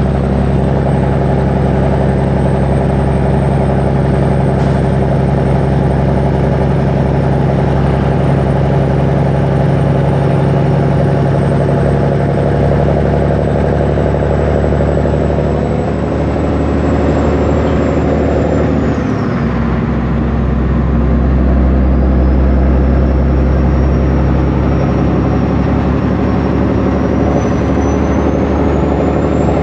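International 9900 heavy truck's diesel engine running steadily as the truck drives, heard from inside the cab. About two-thirds of the way through, the engine note breaks off and drops for a moment, then picks up again.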